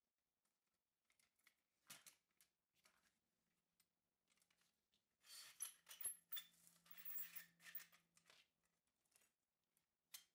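Rusty steel rod scraping as it is slid out of the square-tube metal side frame of an old Amsco Doll-E-Crib. A light metal click comes about two seconds in, the scraping lasts about three seconds from around five seconds in, and another click comes near the end.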